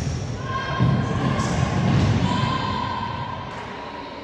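Shouting voices echoing around an indoor futsal hall, held calls rather than steady talk. A thud of the ball about a second in, followed by a couple of seconds of low hall rumble.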